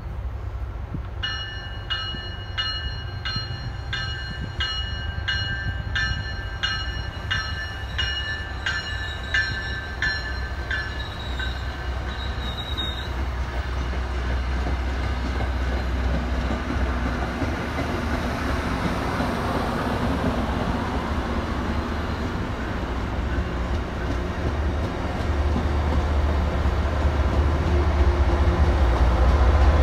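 MBTA commuter train passing: a bell rings about one and a half strikes a second for roughly the first ten seconds, then the bilevel coaches go by with a steady rumble and rail noise. Near the end the deep rumble of the diesel locomotive pushing at the rear grows louder as it nears.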